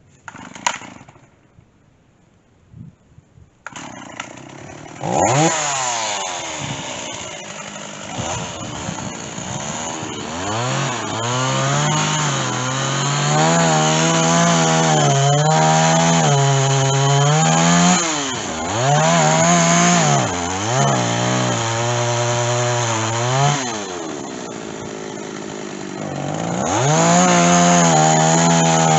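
Stihl two-stroke chainsaw coming up to speed about five seconds in and cutting through white oak on a dull chain, its pitch dipping and recovering over and over as it loads up in the wood. It eases off to a lower speed for a couple of seconds and then revs high again near the end. A single sharp knock comes in the quiet near the start.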